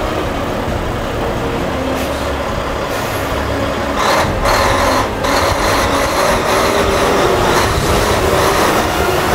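A Rosenbauer Panther 6x6 airport-style fire truck's 16.1-litre straight-six diesel engine running as the truck drives slowly past. A louder hissing rush joins about four seconds in.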